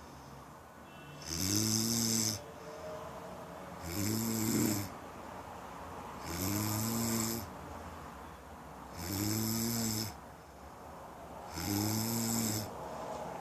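A person snoring in a steady rhythm: five snores about two and a half seconds apart, each a low buzzing snore of about a second with a hiss over it.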